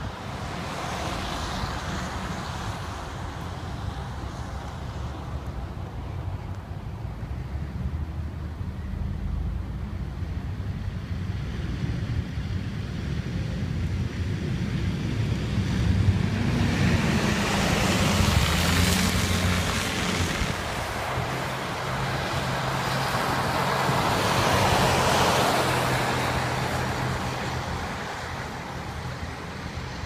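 Wind buffeting the microphone with a steady low rumble, while cars pass twice on the snow-covered road in the second half, their tyre noise swelling and fading.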